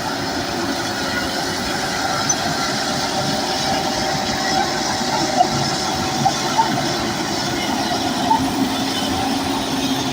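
Crawler bulldozer working: a steady diesel engine sound mixed with the clatter of its steel tracks, with a few sharp clanks.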